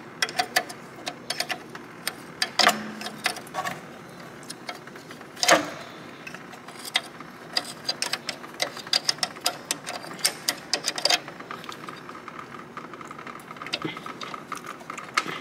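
Quick, irregular metallic clicks of a small wrench being worked back and forth on a rusted, binding brake-line fitting at a Volvo 240's front brake caliper. Two louder knocks come about 3 and 5.5 seconds in.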